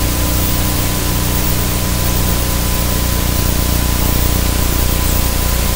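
Loud, steady static hiss with a thin steady tone and a low hum underneath it.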